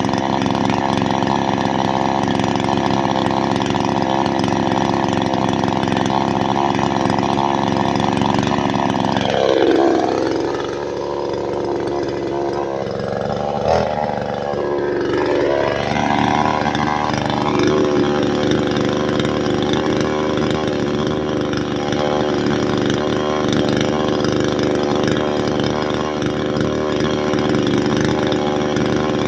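Chainsaw running at high speed; about nine seconds in its engine speed drops sharply, wavers low for several seconds, then climbs back up and runs steadily again.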